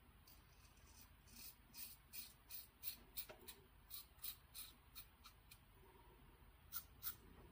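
Merkur Progress adjustable double-edge safety razor scraping through stubble on the upper lip: a run of short, faint scratching strokes, about three a second, then a pause and two more strokes near the end.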